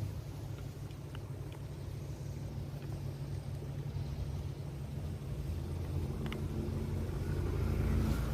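A motor engine running with a low, steady rumble that swells a little in the second half, with a few faint ticks over it.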